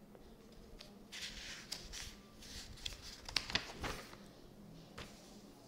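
Faint paper rustling with a few light clicks and ticks as textbook pages are turned and handled, mostly between about one and four seconds in.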